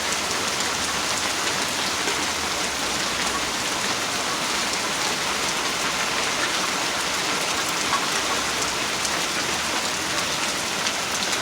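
Heavy rain pouring steadily, with scattered sharp taps that fit hail mixed into the downpour.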